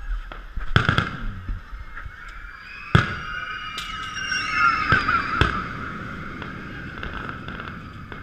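Aerial fireworks shells bursting: several sharp bangs, the loudest about three seconds in, over a steady background din.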